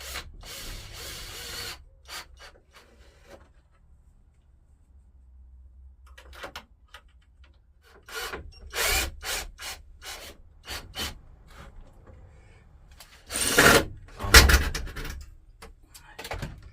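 Wood knocking, scraping and rubbing as a wooden pallet is shifted, in a string of separate bumps and slides, the loudest two close together near the end.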